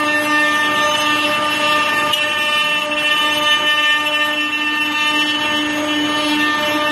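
Eight-spindle CNC wood router with rotary axes carving wooden figures: the spindles give a steady, unchanging whine over the rough noise of the bits cutting wood.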